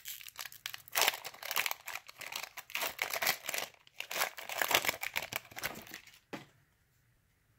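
Foil wrapper of a Yu-Gi-Oh! booster pack crinkling and tearing as it is ripped open by hand, a dense crackly rustle that stops about six seconds in.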